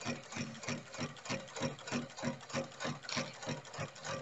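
Sewing machine for boat rope running and stitching through braided rope, its needle striking in a fast, even rhythm.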